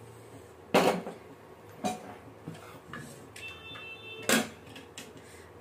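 Hawkins pressure cooker being moved across a steel gas stove and set down on the burner's metal pan support: a few sharp metal knocks, the loudest about a second in and another a little after four seconds.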